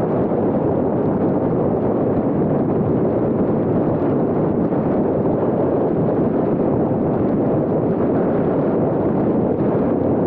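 Steady rushing wind and road noise from a car driving at highway speed, unchanging throughout.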